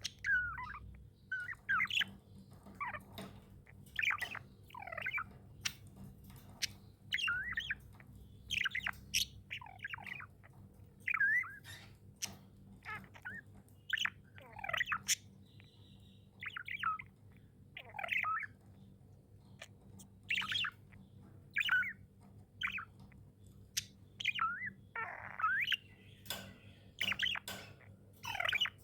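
Pet budgerigars chirping and warbling: short, quick chirps that rise and fall in pitch, coming every second or so, with a few sharp clicks between them.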